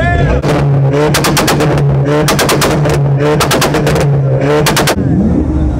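Mitsubishi Lancer (Evo) engine held on a two-step launch limiter: a steady held engine note broken by repeated rapid strings of loud exhaust pops and bangs, which stop near the end.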